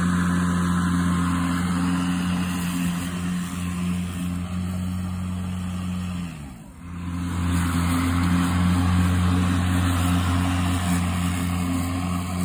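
Hayter Harrier 48 60V battery lawnmower running, its electric motor and spinning blade making a steady low hum as it is pushed over the grass. About halfway through the hum sags and briefly drops out, then comes straight back up.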